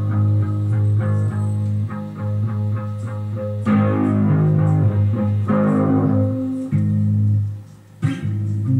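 Electric guitar being played, with sustained ringing notes and a few strummed chords. The sound dies away briefly near the end, then the playing picks up again.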